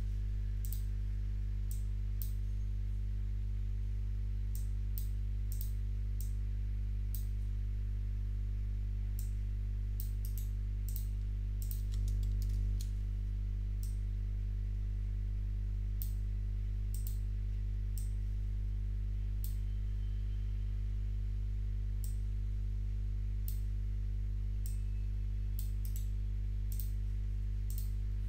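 Computer keyboard typing and mouse clicks, irregular single clicks and short runs of keystrokes, over a steady low hum.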